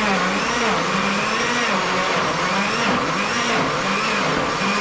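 Electric blender running, puréeing tomatoes, its motor pitch dipping and recovering again and again as the load shifts.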